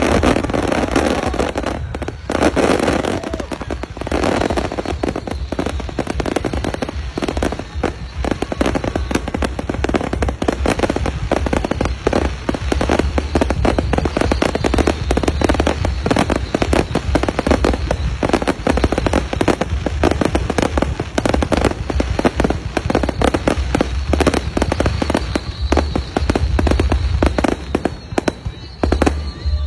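Aerial fireworks display: a dense, continuous barrage of bangs and crackles with deep booms underneath, easing slightly near the end.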